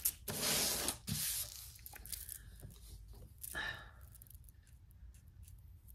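Rustling handling noise as a beaded faux-pearl net collar is pulled open and handled. There is a loud rustle about half a second in and a shorter one about three and a half seconds in, with only quiet background between.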